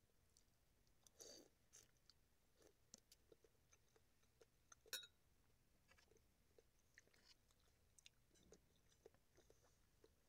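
Faint chewing and small mouth sounds of a person eating vegetable soup, with scattered soft clicks and one sharper click about five seconds in.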